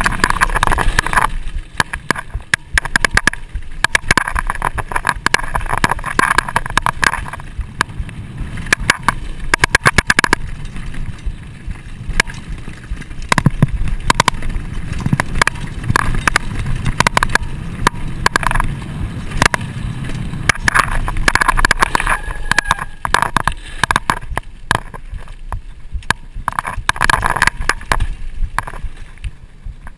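Trek Fuel EX full-suspension mountain bike riding over a dirt trail: a continuous rumble of tyres on packed dirt, with many small clicks and rattles from the bike as it goes over bumps.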